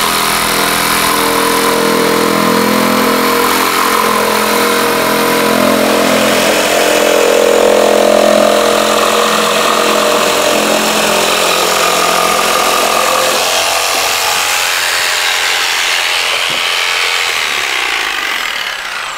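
Mafell P1CC jigsaw cutting a tight curve in timber with an ordinary blade: its 900 W universal motor runs steadily with the blade sawing for nearly twenty seconds. The motor tone weakens in the last third, and the cut stops shortly before the end.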